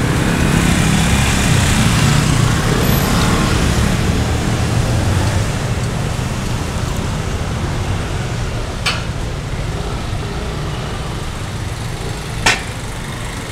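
City street traffic noise: a steady hiss and rumble of passing vehicles, heavier over the first few seconds as something passes close, then easing. Two sharp clicks cut through it near the end, the second the louder.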